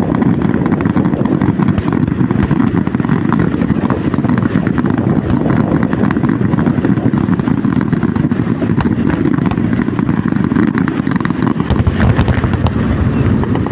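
Fireworks going off without a break in a dense crackle, over a heavy low rumble.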